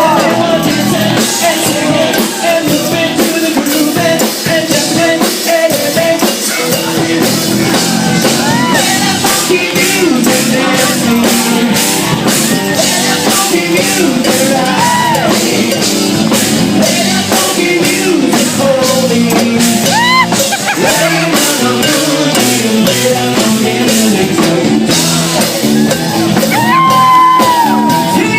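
Live rock band playing loudly, a singer's voice over a steady, evenly spaced beat.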